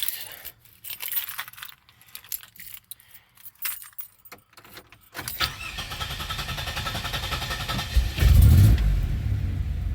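Keys jangling, then a 2007 Pontiac Grand Prix GT's 3.8-litre V6 cranking for about three seconds before it catches with a loud flare near the end and runs. It takes a while to start, on a car that had been cranking without starting.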